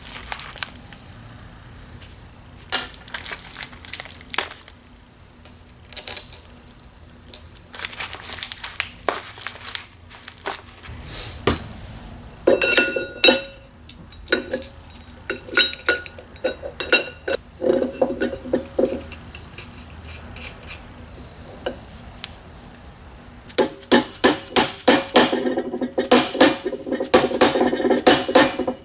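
Metal parts and hand tools clinking and ringing against each other on a workbench. Scattered knocks come first, and a run of quick repeated strokes, about three to four a second, fills the last five seconds.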